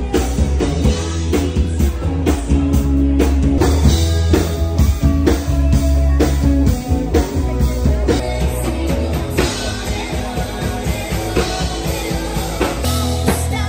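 Rock music with a steady drum beat, bass, guitar and a singing voice.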